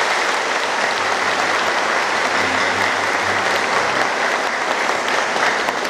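A large congregation applauding: many people clapping together in a dense, steady round that holds its level throughout.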